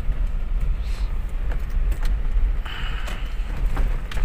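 Steady low rumble of a road vehicle on the move, with scattered light clicks and rattles.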